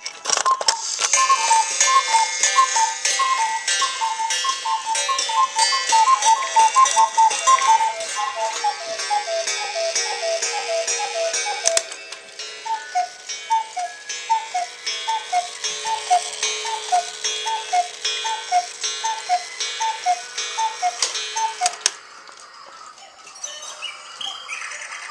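Several cuckoo clocks calling the hour at once, their two-note bellows cuckoos overlapping quickly. About halfway through, one clock carries on alone with evenly spaced cuckoos, about a dozen in all, striking twelve, and stops about 22 seconds in. Clock ticking is heard underneath.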